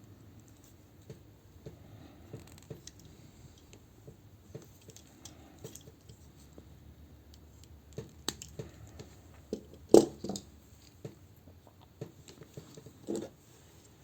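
Small plastic parts of a toy figure being handled and fitted together: scattered light clicks and taps, with a louder snap or knock about ten seconds in and another near the end.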